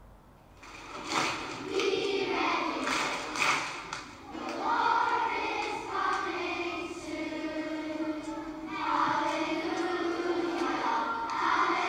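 A choir singing a slow hymn in sustained notes, starting about half a second in.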